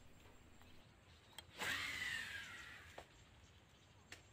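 Baitcasting reel during a cast. A click, then the spool's whirr starts suddenly and falls in pitch as it fades over about a second and a half while line pays out. Single clicks follow twice as the cast ends.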